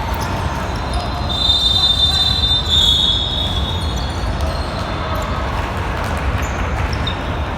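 Basketball shoes squealing on the gym floor: a loud, high squeal in two pulls, starting about a second in and lasting about two seconds. Underneath are a steady low rumble and the thumps of a bouncing basketball.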